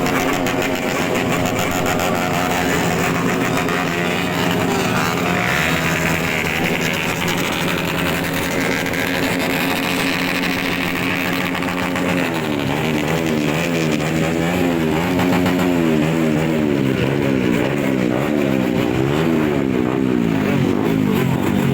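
Motorcycle engines running loudly through aftermarket exhausts. From about halfway the pitch rises and falls over and over as the throttle is blipped, with music playing along.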